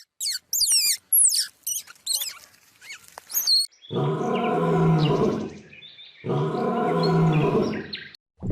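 A bird's quick, high whistled chirps with falling notes, then two long, low calls from a large animal, each lasting nearly two seconds.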